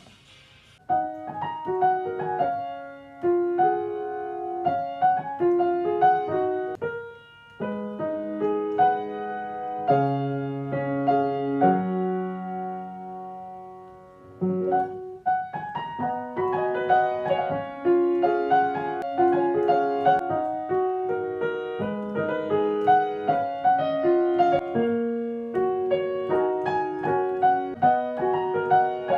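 Piano playing a pop song worked out by ear, a melody over a repeating accompaniment. It starts about a second in, breaks off briefly, settles on a held low note about halfway through, then picks up again.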